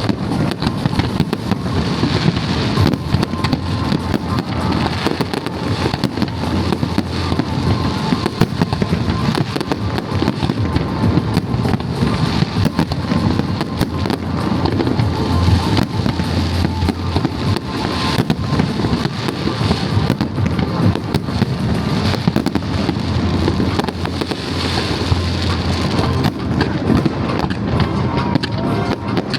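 Fireworks display: a dense, continuous run of bangs and crackles without a break.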